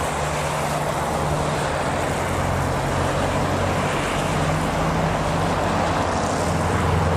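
Steady road traffic noise with a low, even engine hum from a motor vehicle running close by.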